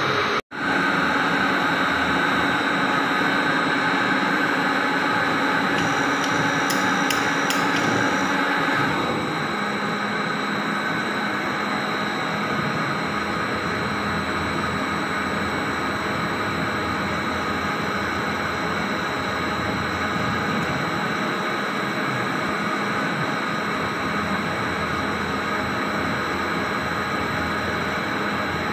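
CNC lathe running in a machine shop while turning a metal bar: a steady machine hum and whine mixed with cutting noise. The tone shifts and the level drops a little about nine seconds in.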